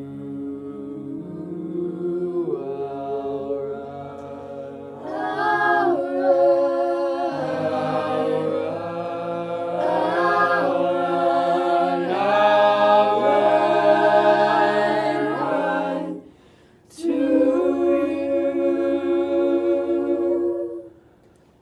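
A mixed-voice a cappella group singing in close harmony. Lower voices hold long chord notes while a louder upper melody moves above them. The singing breaks off briefly about sixteen seconds in, resumes, and stops near the end.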